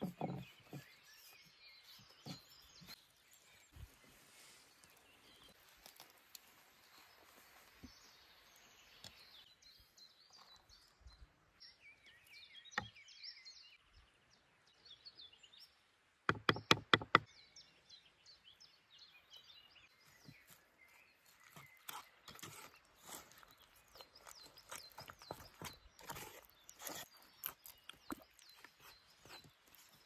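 Soft handling and stirring noises from dough kneaded in a wooden bowl and mustard and mayonnaise stirred with a wooden spoon, with birds chirping in the background. Just past the middle comes a quick run of about six loud wooden knocks, the wooden spoon struck against the wooden bowl.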